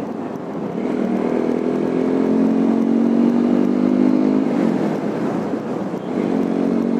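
TVS Apache motorcycle's single-cylinder engine pulling under acceleration, its note rising slightly for a few seconds. It eases off about four and a half seconds in, as in a gear change, then pulls again near the end.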